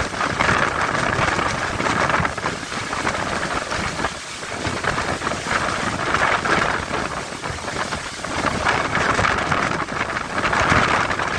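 Storm wind and heavy surf, a loud rushing noise that swells and eases every few seconds, with wind buffeting the microphone.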